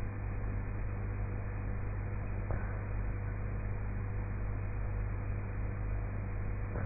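Steady low electrical hum with hiss. Over it, faint soft breaths of a sleeping woman snoring quietly, about two and a half seconds in and again near the end.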